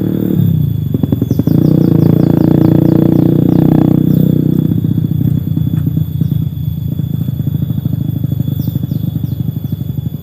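A small engine running with a steady low, pulsing drone, louder for a few seconds near the start. Over it come runs of quick, high downward chirps, once soon after the start and again near the end.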